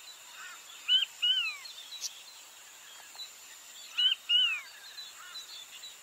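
King quail calling twice, about three seconds apart: each call is a short high note followed by a longer whistled note that rises briefly and falls away. A faint steady hiss lies under the calls.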